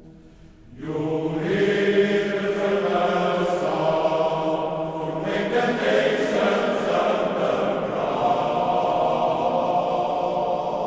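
Male voice choir singing as background music: a quiet, fading passage, then about a second in a loud full-chorded entry of sustained voices that carries on.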